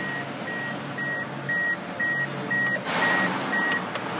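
Dashboard warning chime of a 2004 Mazda MPV beeping about twice a second in a steady high tone. About three seconds in, a louder rush as the 3.0 L V6 is cranked and catches; the chime stops, with a couple of sharp clicks near the end.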